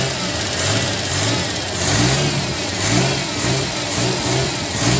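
Suzuki Multicab's F6A 12-valve three-cylinder petrol engine running, its pitch rising and falling again and again as it is revved. It now starts and runs because the wet distributor cap has been wiped dry, curing the hard starting.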